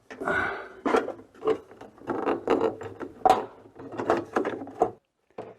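Plastic fridge panels and parts being handled and pushed back into place: a busy run of irregular clicks, knocks and rattles that cuts off abruptly about five seconds in.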